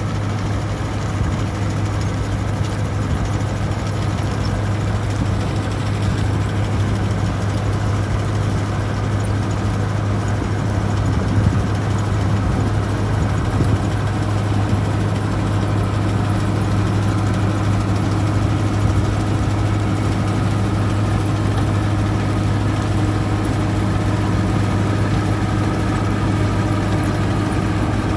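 A heavy engine running steadily at an even speed, a constant low hum with no change in pitch, such as the machinery working the wheat harvest.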